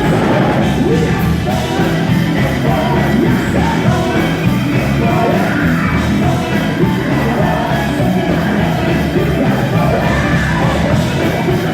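Gospel quartet with a loud live band, the lead singer shouting and wailing over the music.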